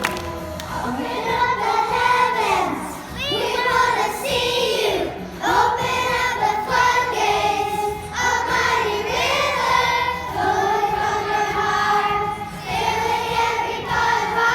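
Several voices singing together with music.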